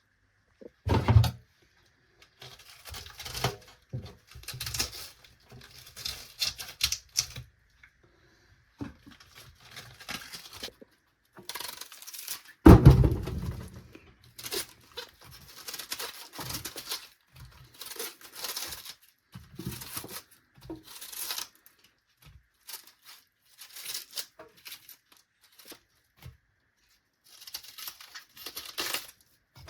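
Irregular rustling and scraping from hands-on work, with two heavier thumps, one about a second in and a louder one near the middle.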